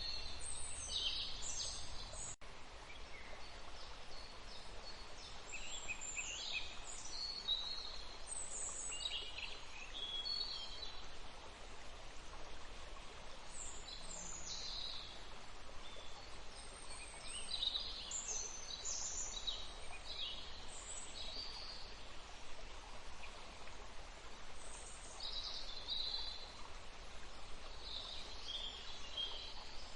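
Several songbirds chirping and singing in short, scattered phrases over a steady rush of running water from a stream.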